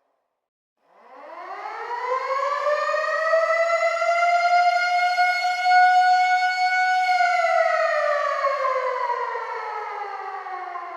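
Air raid siren: after about a second of silence it winds up from a low pitch to one high, steady wail, holds it for several seconds, then slides slowly down in pitch from about seven seconds in.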